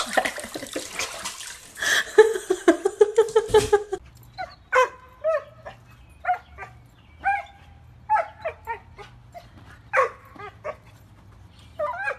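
A dog yipping and barking in short, high-pitched calls, one or two a second, from about four seconds in. Before that comes a louder stretch of noise and a longer, wavering cry.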